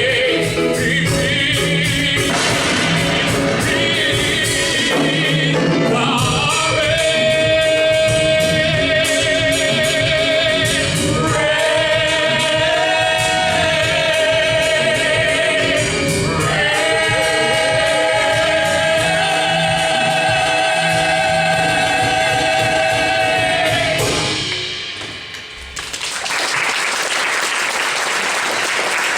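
Voices singing a musical-theatre number with instrumental accompaniment, holding long notes with vibrato as the song builds to its end about 24 seconds in. Audience applause breaks out about two seconds after the song ends.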